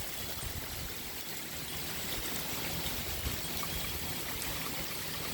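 Steady rush of heavy hurricane rain and pouring water.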